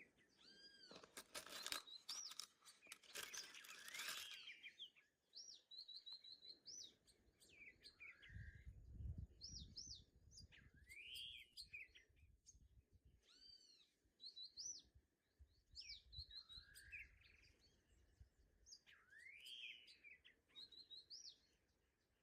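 Faint birdsong: birds repeat short chirping phrases every second or two. A brief rustling clatter comes in the first few seconds, and a low rumble comes around the middle.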